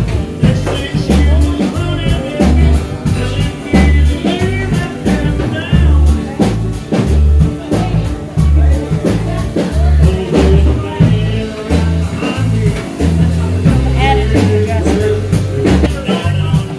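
Background music: a song with singing, guitar and drums over a steady beat.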